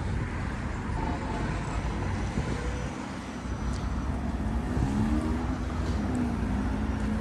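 Street traffic: steady road noise with a motor vehicle passing.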